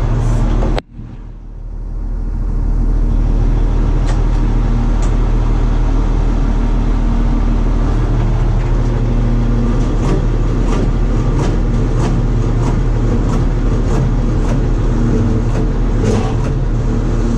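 Bizon combine harvester's diesel engine running steadily, heard from the operator's cab, with scattered light clicks and knocks in the second half. The sound drops out abruptly about a second in and builds back up over the next two seconds.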